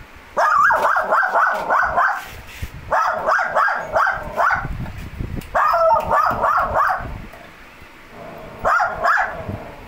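Lhasa Apso barking in quick, high-pitched yaps, in four bursts of several yaps each at about four a second, the last burst short.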